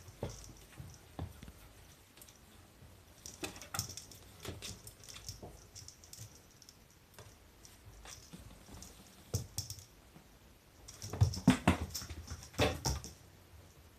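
Kittens moving about, their paws and claws making irregular light taps and scuffs, with a louder flurry of taps about eleven to thirteen seconds in.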